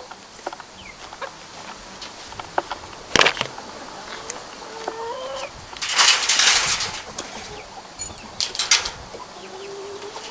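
Chickens clucking, with short calls that slide in pitch. A sharp knock comes about three seconds in, and a loud rustling burst about six seconds in.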